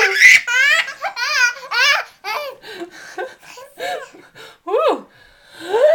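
A baby laughing hard in repeated bursts of high-pitched belly laughter. The laughs turn to smaller, quieter giggles midway and swell again near the end. The laughter is the baby's reaction to fake sneezes.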